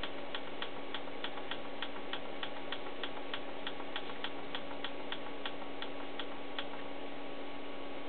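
Tektronix 2445B oscilloscope clicking about three times a second, one click per step as it runs through its calibration data dump, over a steady hum; the clicks stop about six and a half seconds in as the dump finishes.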